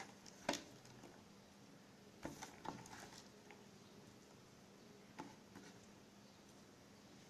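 A few small clicks and taps as loose rubber key domes are scooped off a keyboard's plastic membrane by hand. The sharpest comes about half a second in, a short cluster follows around two to three seconds, and one more comes near five seconds.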